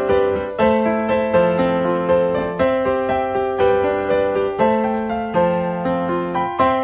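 Background piano music: a gentle melody of single notes struck at an even pace, each fading away.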